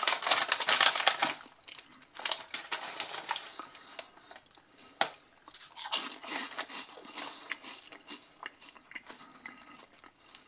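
A foil-lined snack bag crinkles loudly for about the first second and a half. Then come crisp crunching and chewing of corn-and-potato fries-shaped snack sticks, as small sharp crunches.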